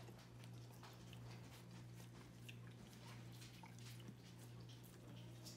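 Near silence: a faint steady low hum with scattered soft clicks.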